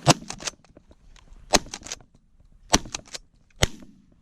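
Several shotguns firing: four loud shots roughly a second apart, with fainter sharp cracks between them.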